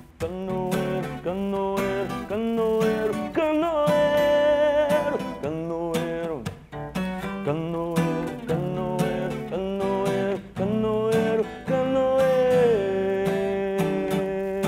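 A man singing a Brazilian song while strumming an acoustic guitar, ending on a long held note.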